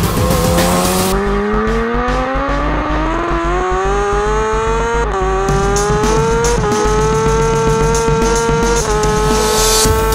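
BMW S 1000 RR superbike's inline-four engine under hard acceleration at racing speed, its pitch climbing steadily for about five seconds. Quick dips in pitch at the upshifts follow, about five seconds in and twice more, and the engine otherwise holds a high, near-steady note.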